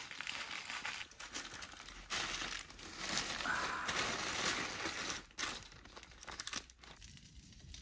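Parchment paper crinkling and rustling as a wrapped parcel of meat is handled and set on a grill grate, loudest in the middle and dying away over the last couple of seconds.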